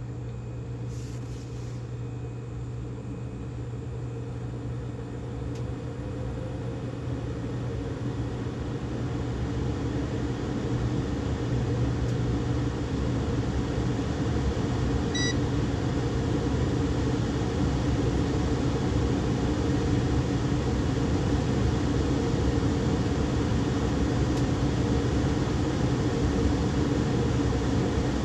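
HVAC unit running on a first-stage call: a steady motor hum and airflow that builds gradually over the first ten seconds or so, then holds level. A brief electronic beep about halfway through.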